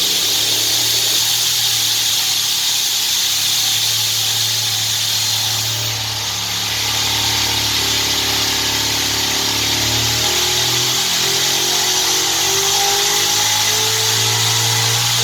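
ProCharger F1-supercharged Ford Windsor V8 running on E85 under full load on a dyno at about 18 psi boost, a pull that makes about 1,000 horsepower. The engine runs hard and steady, dips briefly about six seconds in, then its pitch climbs through the last few seconds as the revs rise.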